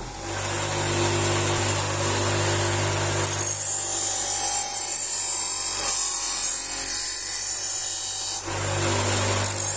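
Bench grinder running a slotted paper honing wheel, with a knife blade held against the wheel for deburring passes. It is a steady motor hum under a high hissing rub, with a brief break a little after eight seconds.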